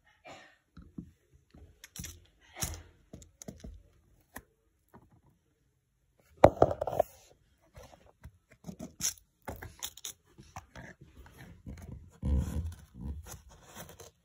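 Handling sounds of a plastic Schleich toy horse and rider being moved about over sand: scattered small taps, scrapes and rustles. There is a louder burst about six and a half seconds in and another cluster near the end.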